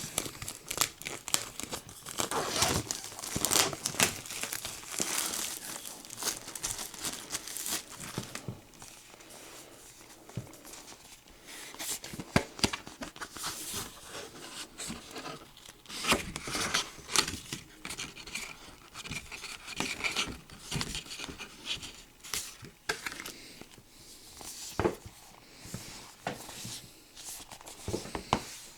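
Plastic wrapping being torn and crinkled by hand while a Blu-ray box set is unwrapped: irregular crackles and rustles with short quieter pauses.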